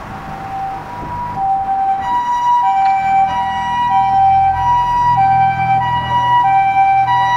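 Japanese ambulance's electronic two-tone siren, alternating between a high and a low tone, each held a little over half a second, as the ambulance pulls out on an emergency call; it grows louder over the first two seconds, with an engine rumbling underneath.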